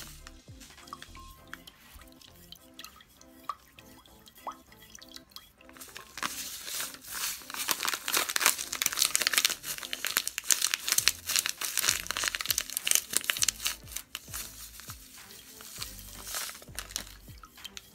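A plastic packet of crystal-growing powder crinkling as the powder is squeezed out in a thin stream into a bowl of hot water. The crinkling is loudest from about six to fourteen seconds in, over background music with a steady beat.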